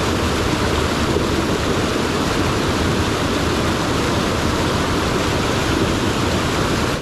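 Mountain stream rushing, a steady unbroken wash of water noise.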